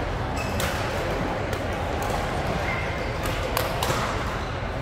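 Badminton racquets striking shuttlecocks across several courts: a handful of sharp cracks, three of them close together about three and a half seconds in, with brief high shoe squeaks on the court floor over a background of people's voices in a large hall.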